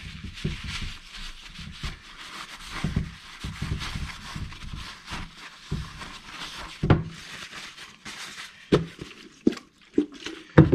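Paper towel rubbing and wiping over a metal differential cover to clear off excess polyurethane sealant, a scratchy rustle with soft knocks of hands and metal against the bench. Several sharp clicks come in the second half.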